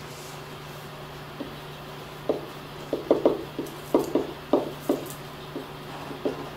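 Dry-erase marker squeaking and scratching on a whiteboard in a quick run of short, irregular strokes, starting about two seconds in, over a steady low hum.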